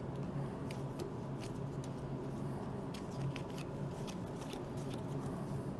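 Star Wars: Unlimited trading cards being handled and picked through on a table, giving scattered faint clicks and soft ticks over a steady low room hum.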